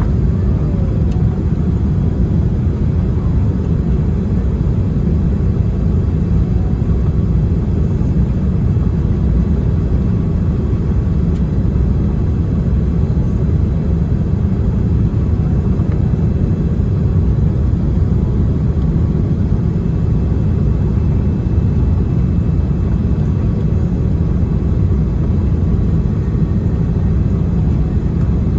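Steady low rumble of a Boeing 787-10 airliner around landing, even and unbroken, with no distinct impacts or changes.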